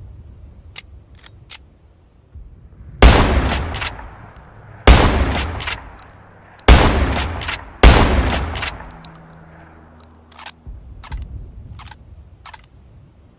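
Winchester trench gun, a pump-action shotgun, fired four times: four loud shots, each with a long echoing tail, the last two close together. A few sharp mechanical clicks come before the shots and several more after them.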